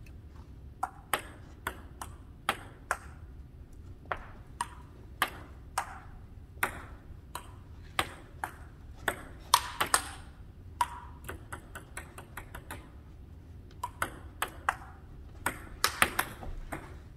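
Table tennis rally: the ping-pong ball clicking sharply off the paddles and the table in quick back-and-forth exchanges, with a short pause about three-quarters of the way through before play resumes.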